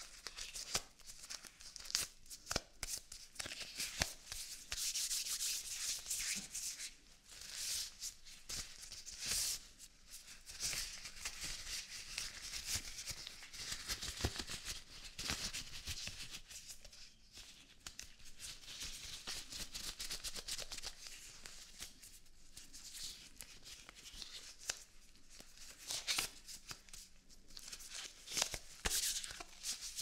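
Latex surgical gloves being pulled onto the hands and worked over the fingers, the rubber rubbing and stretching. It comes as irregular bursts of high-pitched rustling with sharp clicks scattered through.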